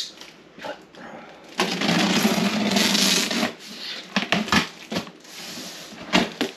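Packing tape on a cardboard box being cut open with a knife: a ripping noise of about two seconds, starting a second and a half in. It is followed by a few knocks and rustles as the cardboard flaps are pulled open.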